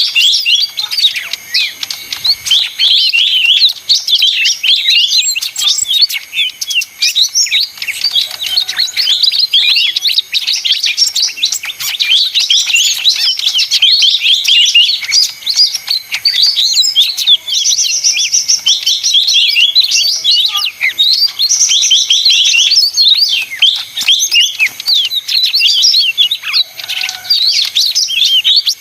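Lesser green leafbird (cucak ijo mini) in agitated "ribut" song: a dense, unbroken chatter of quick, high chirps and short whistled glides.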